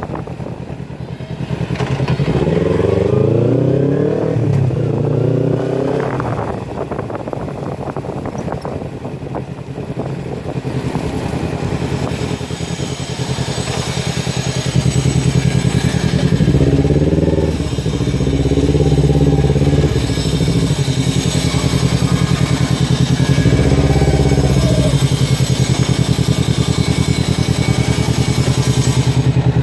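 Kawasaki Ninja 250 Fi parallel-twin engine breathing through an open Scorpion full-system exhaust with no dB killer, running loudly and revved up and down in several quick rises and falls between steadier stretches.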